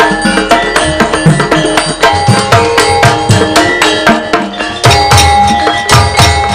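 Javanese gamelan music: a kendang hand drum playing rapid, busy strokes, with metallophones holding ringing tones above it.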